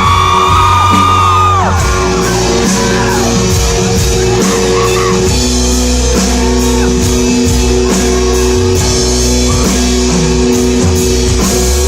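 Live pop-rock band playing an instrumental passage, with steady bass and drums. A high held voice note at the start ends a little under two seconds in.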